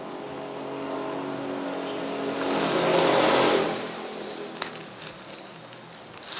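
A motor vehicle passing by, growing louder to a peak about three seconds in and then fading away, followed by a single sharp click about a second later.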